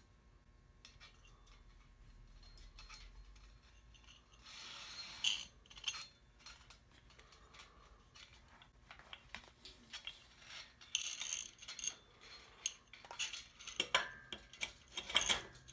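Light clicks, knocks and scrapes of steel parts being handled: steel wire winch cable fed through its mount and the winch mount worked into the engine crane's square-tube boom, with a longer scrape about four seconds in.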